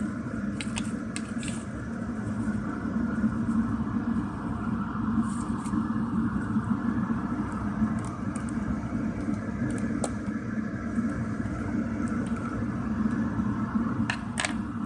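Steady low background hum, with a few faint clicks from handling a plastic multimeter and its paper manual, and two sharper clicks near the end.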